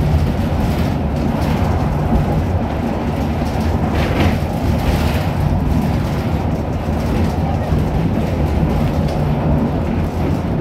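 V3A-93 EPC tram running along the track, heard from inside the passenger car: a loud, steady rumble of wheels on rails and running gear. A brief brighter, higher-pitched noise comes about four seconds in.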